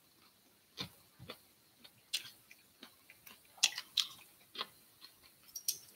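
A man chewing grilled squid close to the microphone: irregular small wet clicks and smacks of the mouth, a few each second at most.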